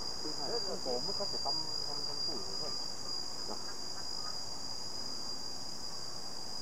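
Insects droning steadily at a single high pitch, unbroken throughout.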